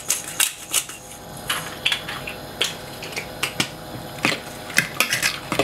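Pepper mill grinding over a plastic mixing bowl, then a utensil stirring the egg mix in the bowl with scattered, irregular clicks and taps.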